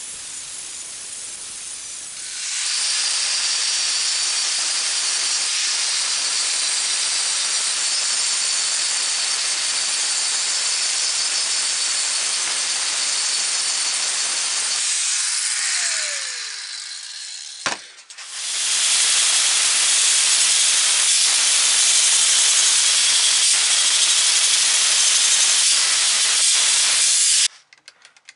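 Angle grinder grinding the steel of a hammer head, a loud steady high hiss. About two-thirds of the way through it winds down with a falling whine and a click, then starts up and grinds again until it cuts off suddenly near the end.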